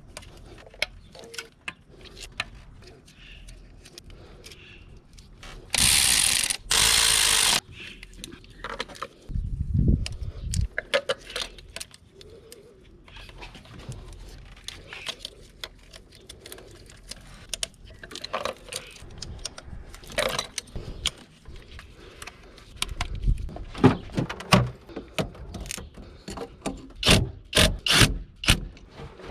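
Hand tools clicking, ratcheting and clinking against metal during work on a BMW X5 engine, with a loud hiss lasting about a second and a half near the start and heavier knocks toward the end.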